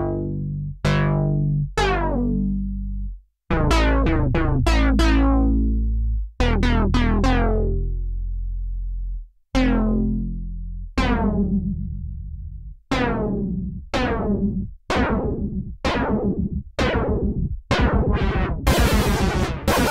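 Cherry Audio Octave Cat software synthesizer, an emulation of the 1976 Octave CAT, playing its "Big Unison Bass" preset: a line of deep bass notes, each with a sharp attack and a tone that darkens quickly as it sustains. The first notes are held for a few seconds; later, shorter notes come about once a second, with a burst of hiss over the last ones.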